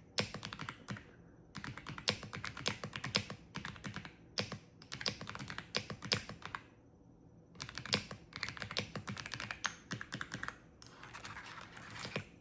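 Fast typing on a clicky wireless keyboard: rapid runs of keystrokes in bursts, broken by short pauses.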